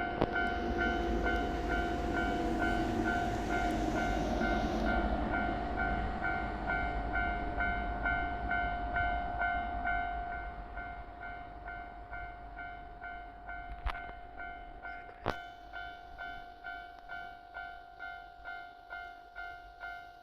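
Japanese level-crossing warning bell ringing steadily, about two strokes a second, over the rumble of a passing freight train that fades away about ten seconds in. Two sharp clicks near the end.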